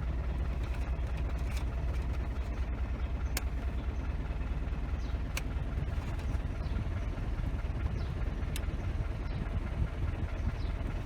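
Isuzu D-Max pickup's engine idling steadily, with a few faint clicks.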